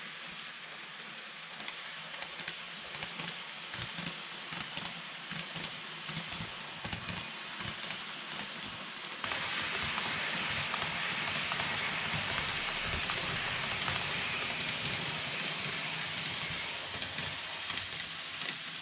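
KATO N-gauge E257 series 2000 model train running on track: a steady rattling hiss of wheels on rail with light clicking. It jumps louder about nine seconds in as the train runs close by, and eases off near the end.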